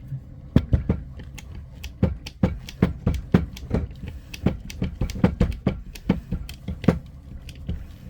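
Crimping tool being worked to press a 1/0 cable lug: a run of sharp clicks and knocks, two or three a second, stopping shortly before the end.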